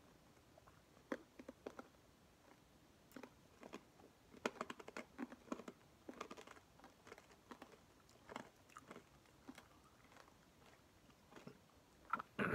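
Hard green tea candy being crunched and chewed in the mouth: faint, irregular crackling crunches close to the microphone.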